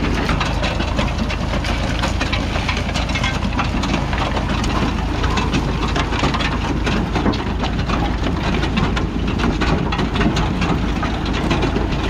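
Massey Ferguson 35 tractor running steadily under load while the Massey Ferguson 711 potato harvester it drives rattles and clatters as it lifts and sorts potatoes and soil. A constant low drone carries a dense stream of small knocks and rattles.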